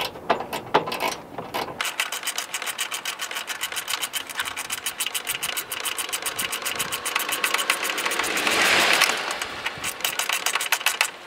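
Hand ratchet clicking rapidly, about ten clicks a second, as a bolt is run down on a truck's radiator fan shroud. The clicking gets louder about three quarters of the way through, then stops just before the end.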